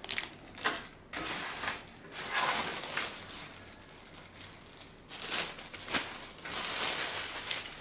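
Thin clear plastic bags crinkling and rustling as they are handled, in irregular bursts with short pauses between.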